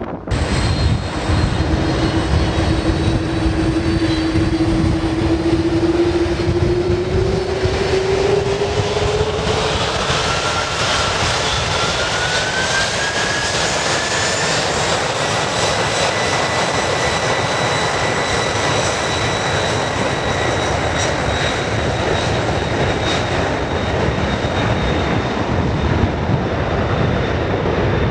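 Jet airliner engines running loud, a whine climbing steadily in pitch over the first fifteen seconds or so as the engines spool up, then holding at one pitch.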